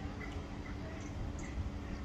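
Outdoor ambience: wind buffeting the microphone, with a few faint, short, high chirps or squeaks.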